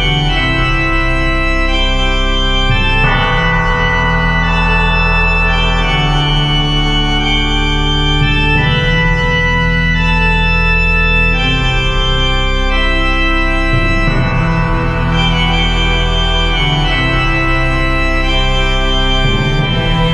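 Organ playing slow, sustained chords that change every few seconds, with no drums: part of an avant-garde black metal track.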